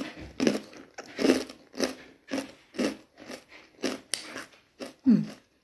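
Chewing and crunching a crisp seaweed chip with the mouth closed, about two crunches a second. A brief falling hum near the end.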